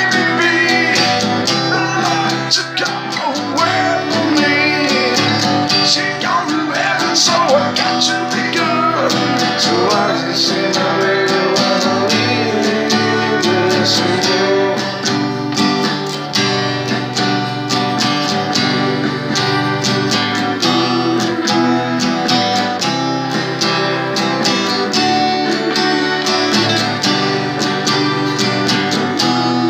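Acoustic guitar strummed in a steady rhythm, with a man's voice singing over it for roughly the first twelve seconds.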